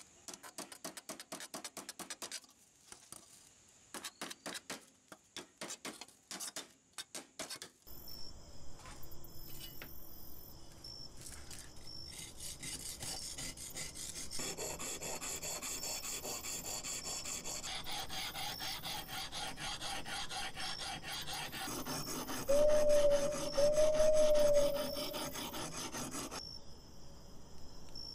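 A metal scraper blade scraping rust off the rusty metal parts of an antique hand food press: separate strokes at first, then quick, continuous scraping. Two short, loud squeaks come about two-thirds of the way through.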